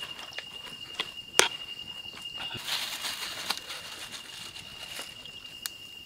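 Steady high-pitched chirring of a cricket, with a few light clicks and soft rustles from the biryani being layered in the metal pot, the sharpest click about a second and a half in.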